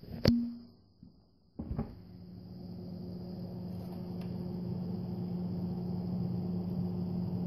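A sharp knock about a third of a second in and a second thump just under two seconds in, then a steady low hum with a faint high whine that slowly grows louder: the Westinghouse WSE7000 side-by-side fridge's fan running, heard more clearly with the door open.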